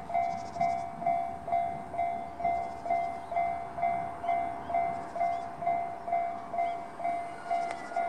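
Japanese level crossing's electronic warning bell, the JR standard tone, ringing in a steady repeating ding about two times a second, each stroke fading before the next. It signals a train approaching with the barriers down.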